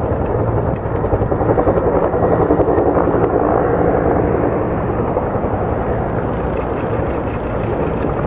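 Firefighting helicopter with a water bucket flying overhead, its rotor and engine a steady, rapidly throbbing drone.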